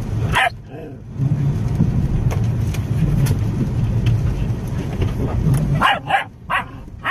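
A dog barking: one bark about half a second in, then four quick barks near the end, over a steady low rumble.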